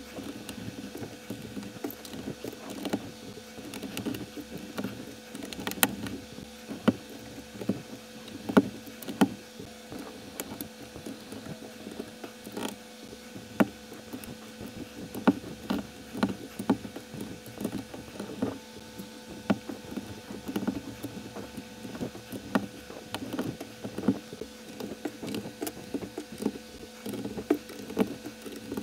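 Plastic building bricks clicking and snapping as they are pressed together by hand, with irregular sharp clicks several times a second over a faint steady hum.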